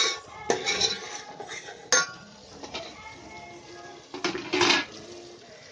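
A metal spoon clinking and scraping against a metal cooking pot while stirring thick, roasted curry masala: a few sharp clinks in the first two seconds, then a louder scraping clatter a little after four seconds.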